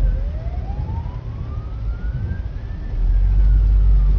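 Hong Kong Fire Services Department ambulance siren in a slow wail. It bottoms out at the start, rises for about three seconds, then starts to fall again. It is heard from inside a following car over a steady low rumble that grows louder about three seconds in.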